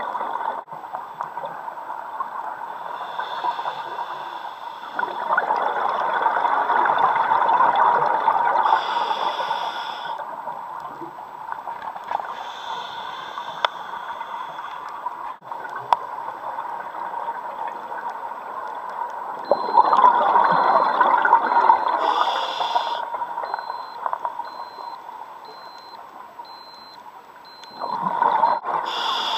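Scuba diver breathing through a regulator underwater: three long gurgling rushes of exhaled bubbles, each followed by a shorter, higher hiss of inhalation, over a steady underwater hiss.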